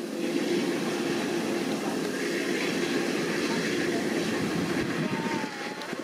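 Kubota DC-105X rice combine harvester running steadily as it cuts and threshes, a constant mechanical drone with a steady hum from its diesel engine.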